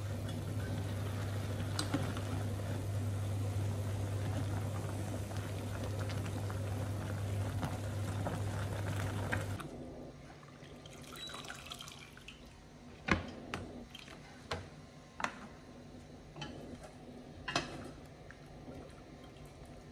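Water boiling in a covered stainless steel pot on an induction hob, with a steady low hum; this stops abruptly about halfway through. After that it is quieter, with wooden chopsticks stirring the blanched greens and knocking sharply against the pot and a plastic colander about six times.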